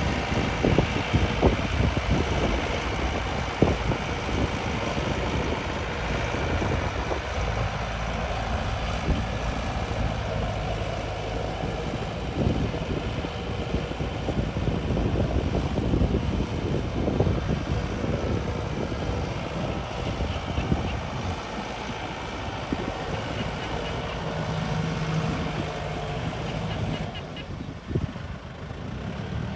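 Yanmar EF725T 72 hp tractor's diesel engine running steadily as it works the field pulling a 2.2 m plow, with scattered irregular knocks; the sound eases near the end.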